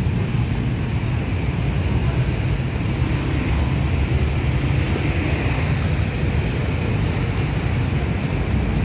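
Steady rumble of road traffic, with wind buffeting the microphone.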